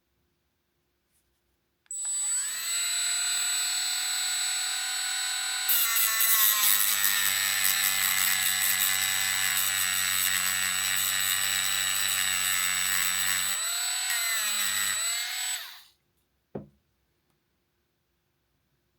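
Small electric grinder spinning up to a steady whine, then grinding into an 18650 battery cell for about eight seconds. The rough grinding stops, the grinder runs free briefly and spins down, and a single short knock follows.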